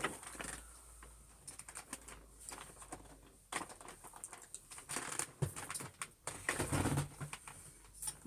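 Scattered light clicks and knocks of objects being handled, over a faint low hum, with a brief low murmur about two-thirds of the way through.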